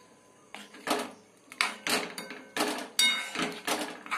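A spatula stirring potatoes through thick spice paste in a metal pan on the stove, scraping and clinking against the pan about twice a second from about half a second in.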